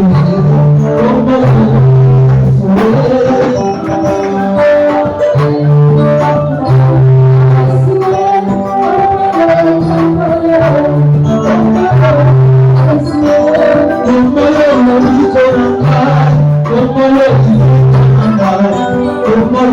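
Worship band music with a repeating low bass line, percussion strikes and melodic instrument lines above.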